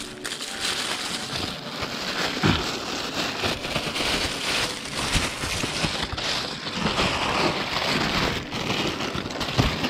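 Plastic bag holding a slab of cut honeycomb being handled and folded by hand, rustling and crinkling steadily with many small crackles and clicks.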